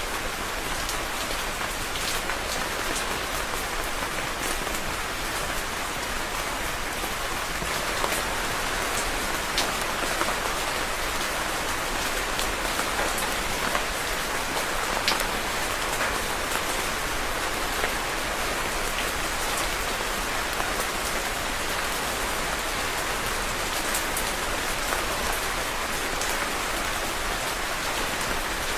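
Steady rain falling on a surface, a dense even patter with many individual drops ticking through it.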